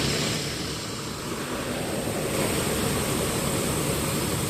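Steady rushing noise of road traffic going past, with wind noise on the microphone.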